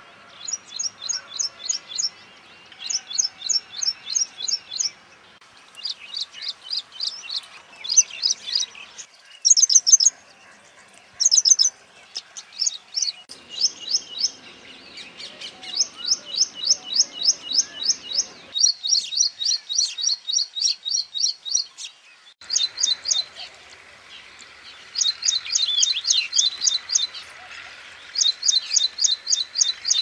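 Ashy prinia singing: quick runs of sharp, high repeated notes, about seven a second, in phrases of one to two seconds with short pauses between.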